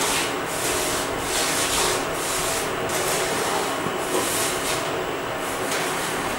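Flat wooden spatula scraping and stirring a dry, gritty mix of roasted semolina, wheat flour and gram flour with sugar in a non-stick frying pan, in repeated strokes about two a second.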